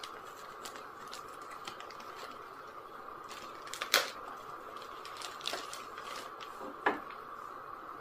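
Clear plastic bag crinkling and rustling as it is handled and pulled open, with light clicks throughout and two sharper crackles, about four and seven seconds in.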